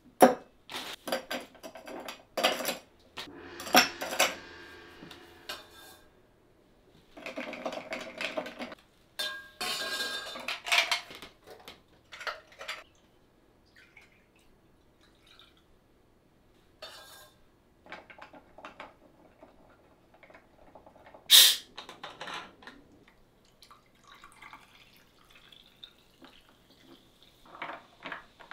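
Ice cubes clattering into a tall glass, then liquid poured into it, and near the end a bar spoon clinking against the ice and glass as the highball is stirred. One loud sharp clink comes about two-thirds of the way through.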